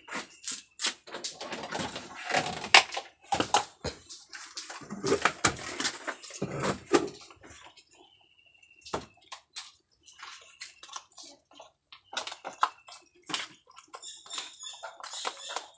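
Dishes being washed by hand: splashing water with the irregular knock and clatter of pots, plates and plastic bowls, easing off briefly about eight seconds in.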